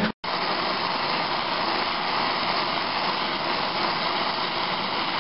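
Gas welding torch hissing steadily, its flame held on a cylinder of the 1920 Harris engine to braze the freeze cracks.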